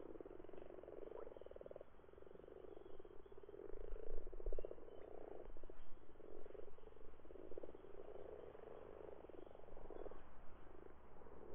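Chorus of common frogs at a breeding pond: overlapping croaks, each a rapid run of pulses, one after another with brief gaps.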